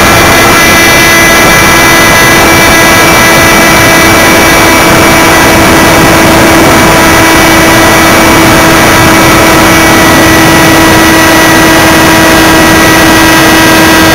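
Electric outrunner motor (TGY AerodriveXp 35-48, 1100Kv, on 6S LiPo) and RFM 9x6 propeller of an RC glider running steadily under power during a climb, a loud whine holding one pitch, over a heavy rush of air on the onboard microphone.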